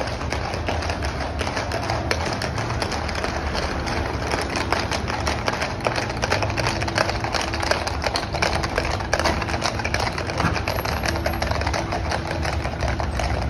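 Shod hooves of a troop of cavalry horses clattering on an asphalt road as they pass: a dense, irregular stream of clicks over a steady low rumble.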